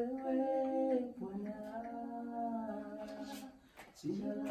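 Voices humming long held notes a cappella. They fade out briefly near the end, then start up again.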